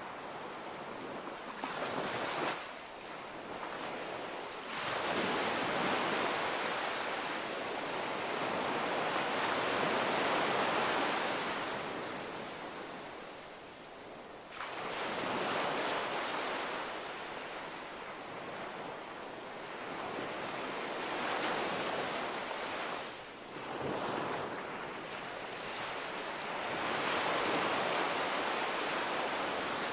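Ocean surf: waves breaking and washing up a beach in slow surges, each one swelling and then easing off, with a longer build from about five seconds in to about eleven.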